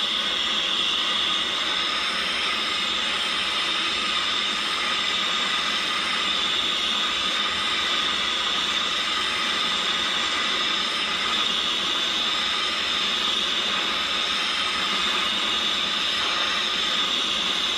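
Jewellery soldering torch burning with a steady hiss as it heats a sweat-solder joint from below, waiting for the solder to flow.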